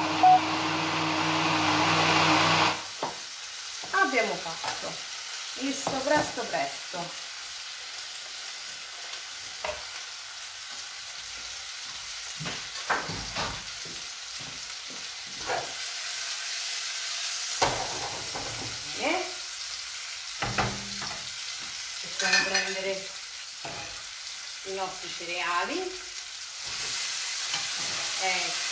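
Electric blender motor running steadily, blending artichoke stems with broth, then switching off about three seconds in. After that, food sizzles and fries in a pan, with scattered scrapes of a wooden spoon stirring, and the sizzle grows louder near the end.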